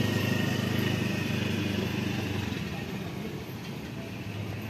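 A vehicle engine running steadily, a low hum that is louder at first and dies down about halfway through.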